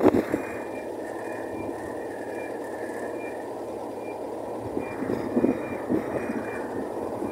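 Steady traffic noise from vehicles passing on a highway, with a few brief louder bumps in the second half.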